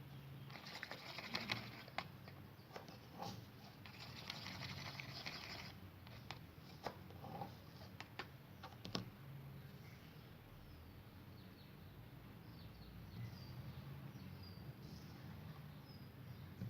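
Faint handling noises: two spells of rustling or scraping in the first six seconds, a few scattered clicks, then quieter, over a low steady hum.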